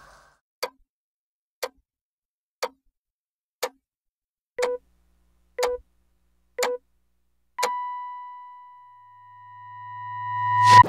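A ticking-clock sound effect, one tick each second, the last three ticks fuller, then a long steady high beep that grows louder, with a low hum joining it near the end.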